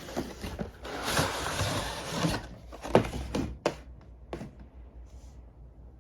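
Toy box being opened: cardboard and plastic packaging rustling and sliding for over a second, then four or five sharp knocks and taps as the contents are handled.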